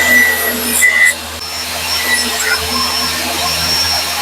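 A power saw running while cutting wood into thin strips: a steady whirring noise, louder for about the first second.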